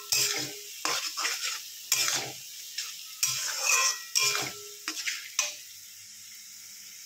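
Metal spatula scraping and stirring chopped onions and ginger-garlic paste frying in oil in a steel kadai, over a steady sizzle. Several quick scraping strokes stop about five and a half seconds in, leaving only the sizzle.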